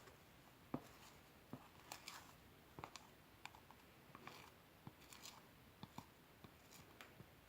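Slime being handled and squished: faint, irregular little clicks and pops, about a dozen scattered through the stretch.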